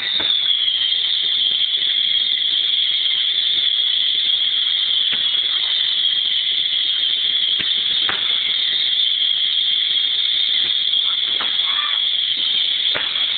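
Ground fountain firework spraying sparks with a steady, loud hiss, and a few crackles in the last few seconds.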